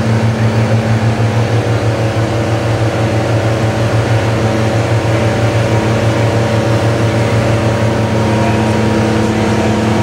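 New Holland T7060 tractor's 6.7-litre FPT six-cylinder diesel running flat out under heavy load on a PTO dynamometer, making about 230 hp and pulled down slightly as the load builds. It is a loud, steady drone.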